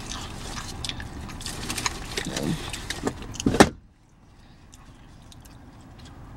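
Clicking and rustling of takeout packaging and a plastic fork being handled over a steady car-cabin hum, with a loud thump about three and a half seconds in. Just after it the background hum cuts off suddenly, leaving it much quieter.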